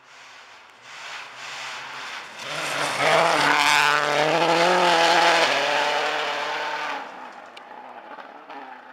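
Subaru Impreza rally car's turbocharged flat-four engine at full revs, approaching, passing close by about four seconds in and fading away, its note wavering as it goes. Tyres hiss and scrabble on loose gravel as it passes.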